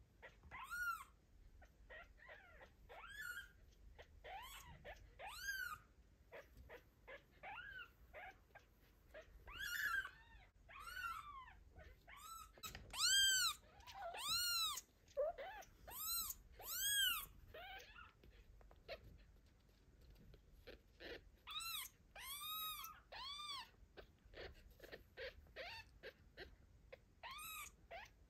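Newborn kitten crying for its mother cat: a long run of short, high, squeaky mews, each rising and then falling in pitch, coming every second or so and loudest around the middle. These are a kitten's separation calls.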